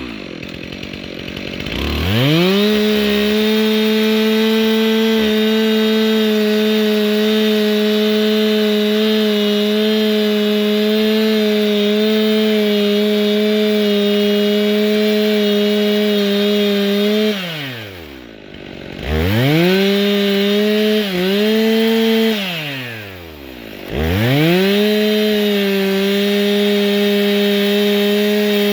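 Stihl MS 362 C two-stroke chainsaw at full throttle, cutting wood. It revs up about two seconds in and holds a steady pitch for some fifteen seconds. It then drops back to idle, revs again for a few seconds with a brief dip, drops back once more, and revs up and holds again.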